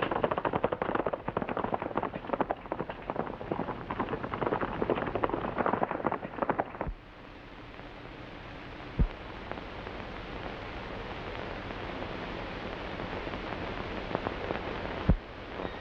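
Horses' hooves beating fast on a trail, a dense run of clatter that cuts off suddenly about seven seconds in. After that there is a steady hiss of old film soundtrack noise, with a couple of single knocks.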